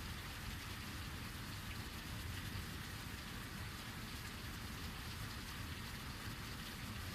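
Heavy rain falling steadily, with a low continuous rumble beneath it.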